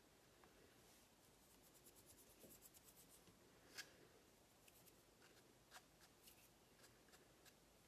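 Faint picking and peeling of small vinyl letter decals off a tumbler: a quick run of tiny ticks and scratches, a sharper click just before the middle, then scattered clicks.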